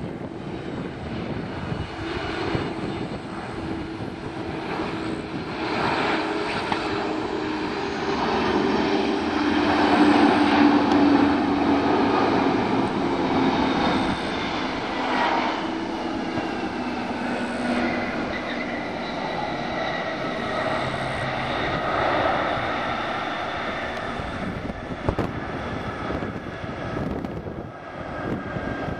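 Jet engines of an Airbus A300-600 airliner on final approach and landing, growing louder to a peak as it passes about a third of the way in. After touchdown the engine whine slides down in pitch as the aircraft slows on the runway.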